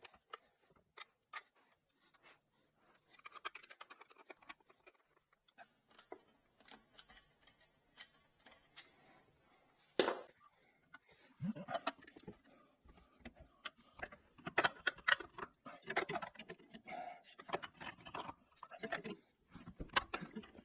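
Scattered small clicks and knocks of objects being handled, with one sharper knock about ten seconds in and denser clattering over the last several seconds.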